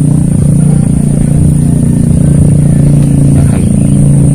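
An engine running steadily and loudly at an unchanging pitch, with a thin steady high whine above it.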